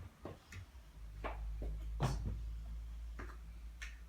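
Scattered light clicks and knocks of small toy dishes and utensils being handled, about seven in all, over a low steady hum that sets in about half a second in.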